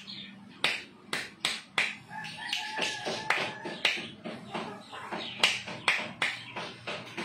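Sharp finger snaps made by a hand working close around a person's head, coming irregularly about two to three a second.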